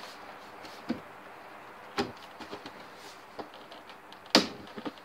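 Plastic projector housing clicking and knocking as the top cover is pressed and worked into place: several sharp knocks, the loudest about four and a half seconds in.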